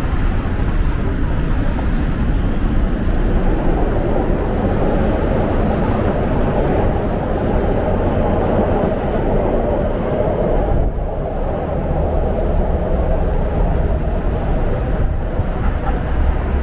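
Steady rumble of city street traffic, with no pauses.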